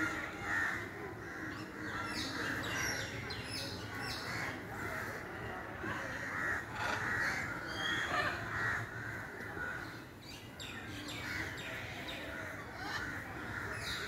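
Macaws squawking: harsh, grating calls that come in several bouts.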